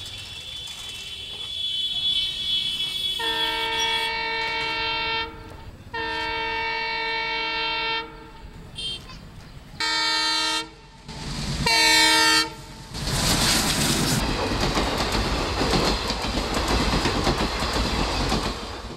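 A locomotive horn sounds four blasts as a passenger train approaches a level crossing: two long blasts, then two shorter ones. The train then rushes past, its wheels clattering over the rails.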